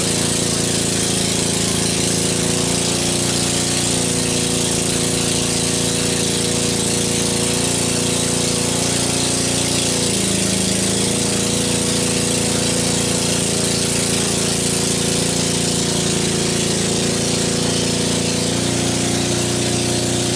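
An engine running steadily, its pitch dipping and rising a little a few times, over a steady hiss of water spraying from a hose.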